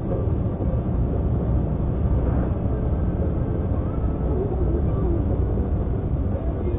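Steady low rumble of engine and tyre noise inside a moving car's cabin while driving at road speed.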